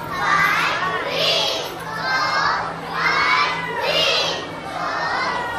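A group of young children chanting a yell together, high-pitched shouts repeating about once a second.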